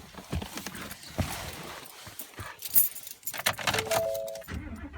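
Keys jangling and scattered clicks and handling noises, then a brief electronic chime of a few overlapping notes from the 2015 Ford F-150 near the end.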